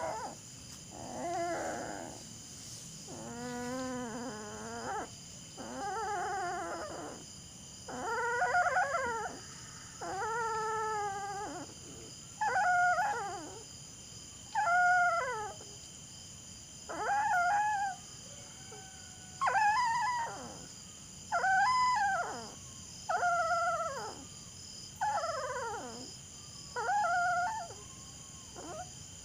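A dog howling over and over: a dozen or so wavering howls, each a second or two long, about every two seconds.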